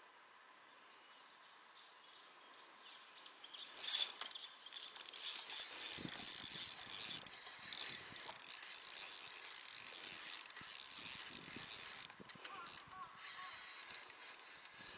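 Baitcasting reel being cranked hard, a high-pitched mechanical whirring rattle from about four seconds in until about twelve seconds in, as a hooked bass is reeled in.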